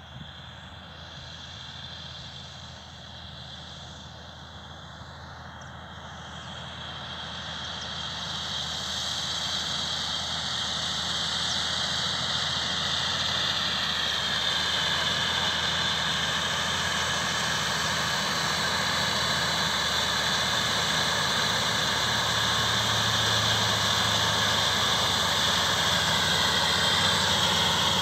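Fendt 939 Vario tractor's six-cylinder diesel engine running under load while it pulls a trailed cultivator through the soil. It gets steadily louder as it comes closer over the first dozen seconds, then holds at a steady level.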